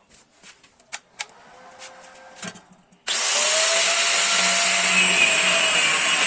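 A few light knocks and taps, then about three seconds in a handheld power tool starts suddenly and runs loud and steady with a strong high hiss, working on metal exhaust pipe.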